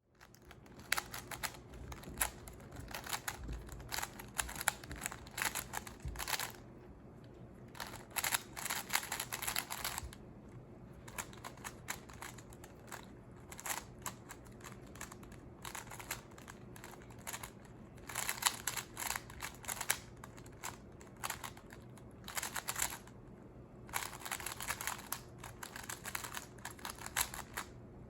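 Plastic 3x3 Rubik's Cube being twisted rapidly by hand, its layers turning with fast clattering clicks. The clicks come in several bursts with quieter pauses between them.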